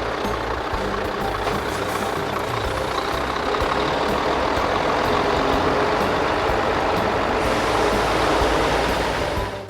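Pickup truck engine running steadily, with dense mechanical noise that stops abruptly at the end.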